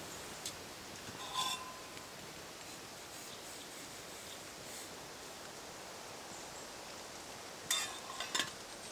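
A few light clinks of dishes and utensils over a steady faint hiss of outdoor background. There is one clink about a second and a half in with a short ring, and a quick run of clinks and knocks near the end.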